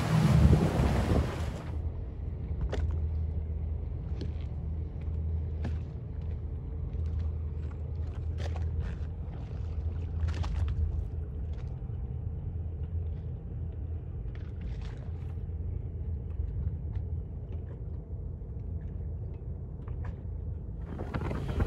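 Steady low rumble of a boat's engine idling, with occasional faint water slaps. The first second or two is loud wind buffeting the microphone before it drops away.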